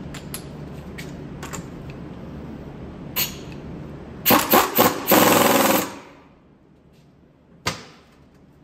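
Impact wrench spinning the top mount nut down a strut shaft and hammering it tight: three short bursts, then a longer run of about a second, over a steady low hum. A single sharp click comes near the end.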